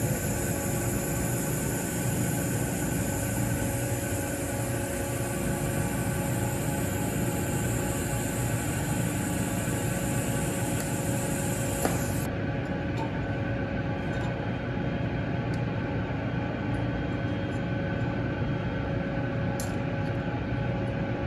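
TIG welding arc tacking 316L stainless pipe, a steady high hiss over a steady background hum, cutting off suddenly about twelve seconds in. The hum carries on afterwards, with a couple of faint clicks near the end.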